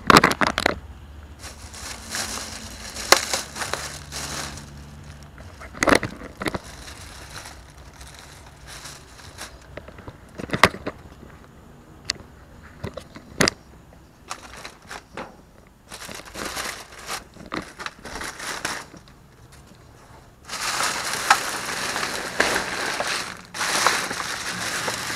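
Black plastic trash bags rustling and crinkling as they are handled and dug through, with sharp knocks and clicks scattered among them. The rustling grows louder and denser about twenty seconds in.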